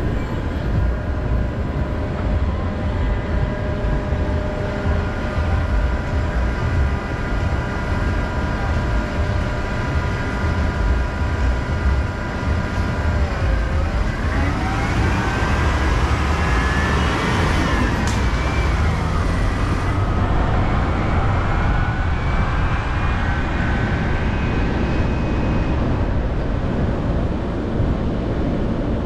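Street traffic with a steady low rumble. A city bus alongside gives a whine that holds steady, then about halfway through dips, climbs in pitch and falls again as it pulls away.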